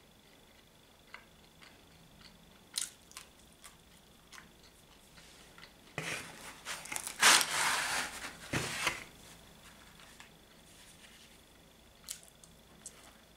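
Small clicks of chewing a mouthful of mushroom and cheese pizza, then about six seconds in a few seconds of rustling and tearing as a pizza slice is handled and picked up, followed by a few more chewing clicks.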